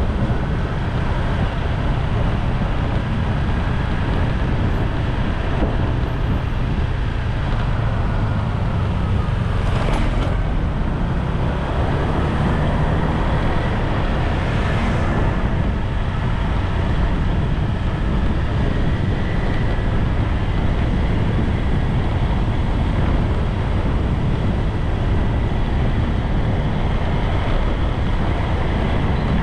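Steady, loud rumble of riding a motorbike at road speed: wind buffeting the microphone over the running engine and tyre noise.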